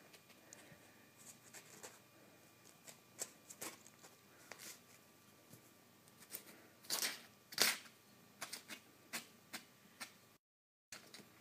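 Kitten pawing and clawing at sheets of printer paper: irregular rustles, crinkles and claw scrapes on the paper, the two loudest about seven seconds in. The sound cuts out completely for a moment near the end.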